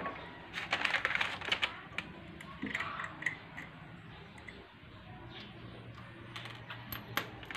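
Light metallic clicks and rattles of a scooter's CVT front pulley parts being handled and fitted by hand: a quick run of clicks about half a second to two seconds in, another around three seconds, and a few sharper clicks near the end.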